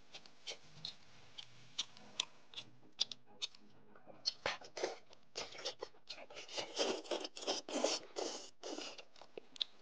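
Close-miked eating of braised lamb leg: wet mouth clicks and chewing, then from about four seconds in a denser run of louder sucking and slurping as meat is pulled off the bone with the lips.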